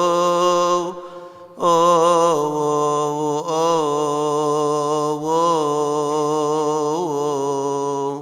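Solo male voice chanting a Coptic Orthodox hymn: long melismatic notes held and slowly ornamented, with a short pause for breath about a second in.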